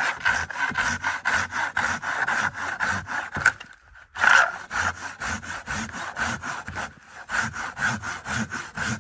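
Silky KatanaBoy 650, a large folding saw with very long, coarse teeth, cutting through a log by hand in rapid strokes of about five a second. The strokes stop for about half a second a little before halfway, then carry on.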